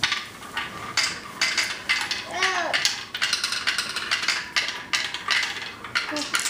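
Marbles rolling and clattering down a marble run track, in repeated rattling bursts one after another.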